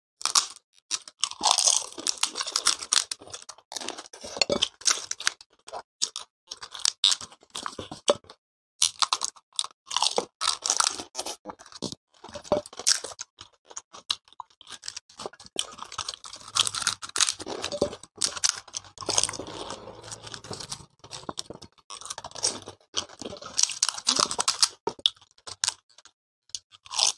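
Two people eating crisp fried panipuri shells quickly: a dense, uneven run of crunching as the puris are cracked and bitten, mixed with chewing.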